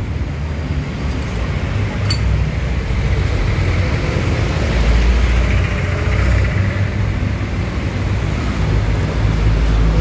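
A steady low mechanical rumble, with a single sharp click about two seconds in.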